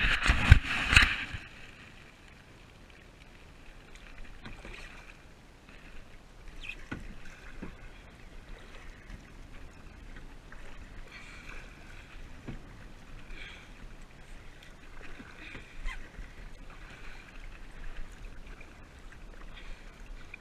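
Kayak paddling: paddle strokes swishing and splashing in the water in a loose, irregular rhythm, with occasional light knocks. A loud clatter of knocks and splashing comes in the first second or so.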